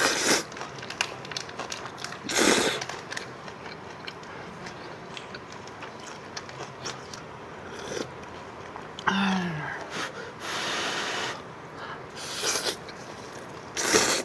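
Slurping of instant ramyeon noodles and broth, several loud slurps a few seconds apart, with a short vocal sound from the eater in the middle.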